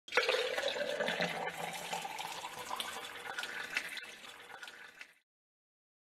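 Coffee being poured into a cup, the pouring sound rising steadily in pitch as the cup fills. It cuts off suddenly about five seconds in.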